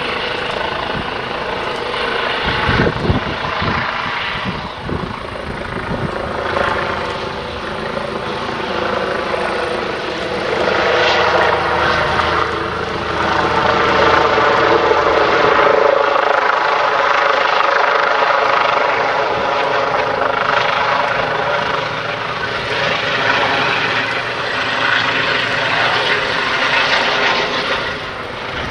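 Eurocopter EC135 P2 helicopter hovering and manoeuvring low: its twin turboshaft engines, main rotor and shrouded Fenestron tail rotor make a steady, many-toned whine and hum that swells louder in the middle stretch. A few low thumps come about three seconds in.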